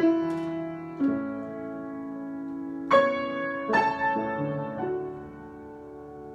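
Improvised solo instrumental music: chords struck about six times, each left to ring and fade.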